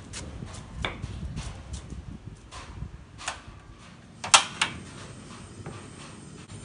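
A portable gas stove's ignition knob clicking sharply twice, lighting the burner, after a few faint scattered ticks and knocks.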